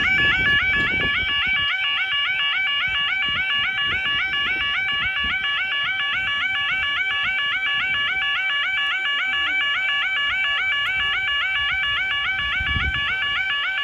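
UK level crossing 'yodel' alarm sounding continuously: a rapid, repeating warble of several cycles a second, warning road users that the barriers are lowering or down for a train.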